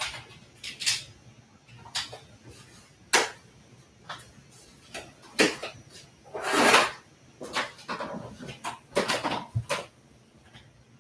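Household objects being handled and set down while tidying a room: irregular knocks, clicks and light clatter, with a longer rustling swish about six and a half seconds in.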